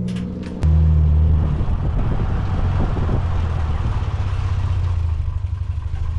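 Truck engine running nearby: a steady low hum that turns louder and rougher about half a second in, then holds.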